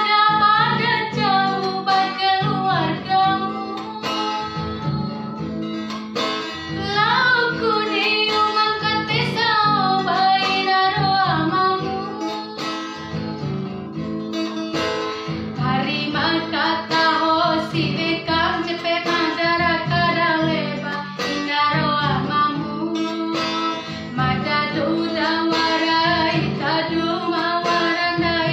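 A woman singing a song to a strummed acoustic guitar.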